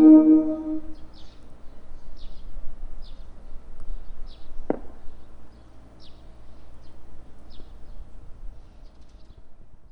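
The last chord of a mallet-instrument melody from a Japan Radio Co. digital disaster-prevention radio outdoor loudspeaker (the midday chime) dies away with an echo in the first second. Then quiet outdoor ambience remains, with a short high chirp repeating about once a second and a single sharp knock about halfway through.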